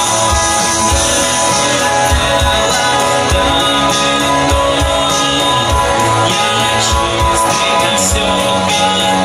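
Live rock band playing loudly: electric guitar over drums, with a lead part on the singer's microphone.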